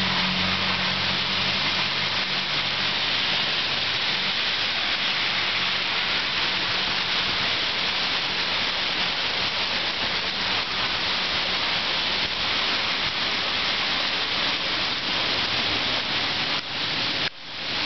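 Heavy rain pouring steadily onto the street and wet surfaces, a constant hiss. The sound dips and briefly cuts out near the end.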